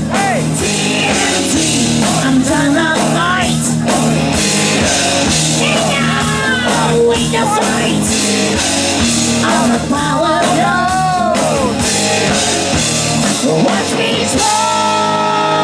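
Loud hard rock music: electric guitar with bent notes over drums and bass, with singing. Near the end a chord is left ringing.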